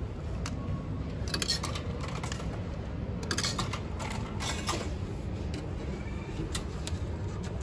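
Coins clinking as they are fed into the coin slot of a coin-operated payment terminal: three short clusters of small metallic clicks over a steady low hum.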